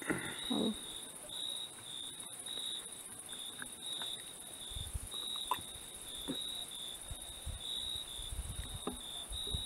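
Crickets chirping in a steady pulse, about three chirps a second, over a constant high-pitched insect hiss, with a few faint clicks and low rumbles.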